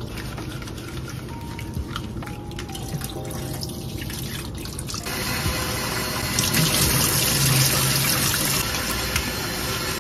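Kitchen tap running into a pot of rice as it is rinsed, the water splashing steadily and growing a little louder about five seconds in.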